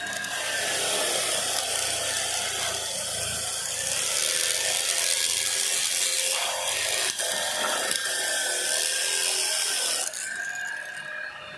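Continuous rasping mechanical noise of hand or power tool work on metal parts, stopping about ten seconds in.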